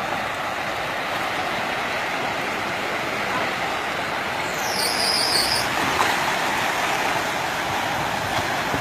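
Steady rush of cars driving through a deeply flooded street, with water churning around their wheels. About halfway through, a high-pitched squeal sounds for about a second.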